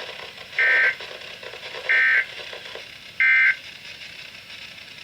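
Weather radio SAME digital data bursts: three short, identical buzzy warbles about 1.3 s apart. Their brevity fits the end-of-message (NNNN) code that closes a bulletin.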